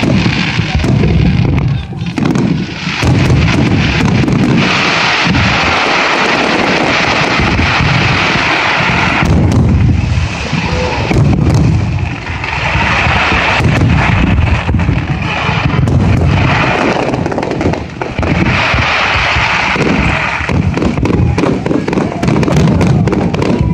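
Fireworks display: near-continuous booming shell bursts with heavy low rumble, and several stretches of dense crackling.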